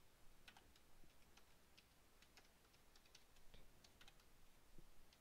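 Faint typing on a computer keyboard: uneven keystroke clicks, a few a second.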